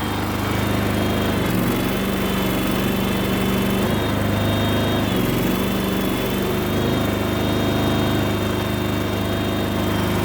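The Kohler engine of a Terramite T5 mini loader running steadily. It keeps running now that its fuel pump has been replaced.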